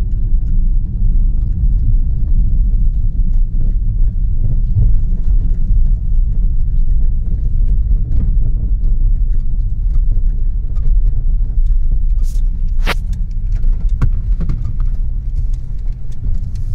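Steady low rumble of a vehicle driving over a rough rural road, with scattered knocks and rattles as it jolts over bumps. The sharpest clack comes about three-quarters of the way through.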